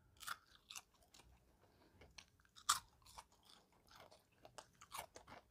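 Faint chewing of crispy air-fried Ore-Ida Golden Crisp French fries: a few scattered short crunches, the clearest a little under three seconds in.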